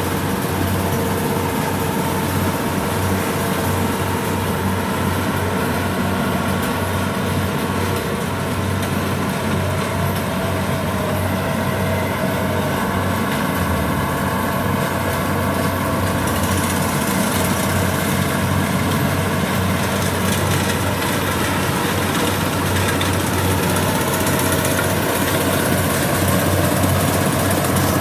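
Diesel engine of a Kubota DC70 rice combine harvester running steadily while it harvests, a continuous engine drone that grows slightly louder near the end.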